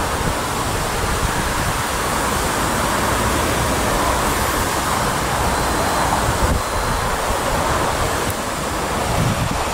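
Steady rushing wind noise with uneven low buffeting on the microphone.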